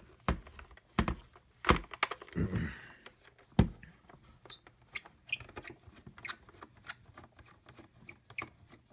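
Hard plastic housing of a handheld cordless vacuum being turned over and handled on a wooden table during disassembly: a few sharp knocks in the first four seconds, then a run of lighter clicks and taps, with one brief high squeak about four and a half seconds in.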